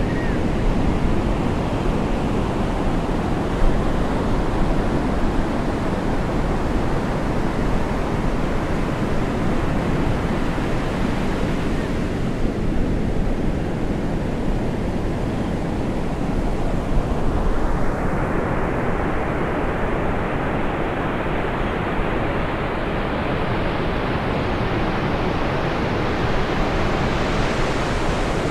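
Steady wash of ocean surf breaking, with wind rumbling on the microphone. The hiss changes in tone a couple of times partway through.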